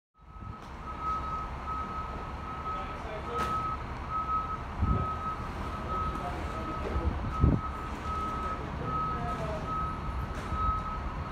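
A single-pitched warning signal repeating about twice a second, over a steady low diesel rumble, with a few dull low thumps.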